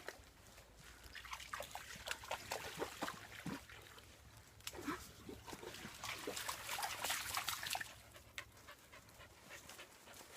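Dogs panting and moving about close by, with scattered clicks and scuffs and a small muddy stream trickling.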